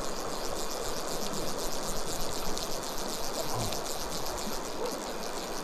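River water running steadily over the stones, a continuous even rush.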